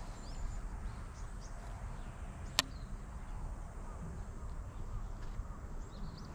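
Steady low rumble with faint, short high chirps of small birds scattered through, and one sharp click about two and a half seconds in.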